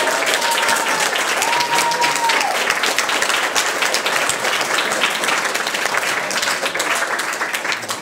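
A small crowd applauding steadily by hand, with a voice calling out over the clapping in the first couple of seconds; the applause tails off at the end.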